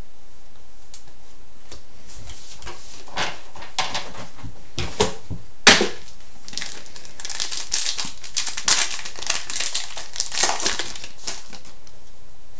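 Crinkling and tearing of a plastic-foil trading card pack wrapper as it is torn open, an irregular string of rustles and crackles with one sharp rip about five and a half seconds in.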